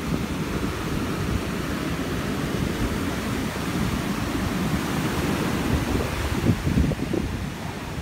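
Rough hurricane storm surf washing up the beach, with gusty wind buffeting the microphone in a steady low rumble and a few sharper gusts near the end.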